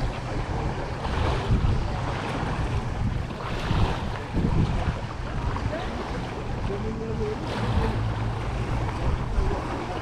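Small waves lapping on a pebbly shore, with wind buffeting the microphone as a low rumble and faint voices of people on the beach.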